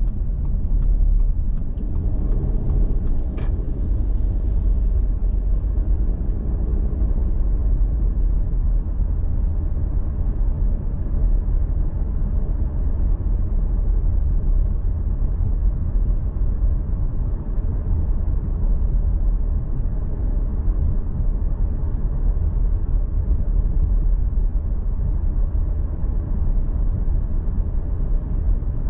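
Steady low rumble of a vehicle driving along a street: road and wind noise picked up by a vehicle-mounted action camera, with a few light clicks about three seconds in.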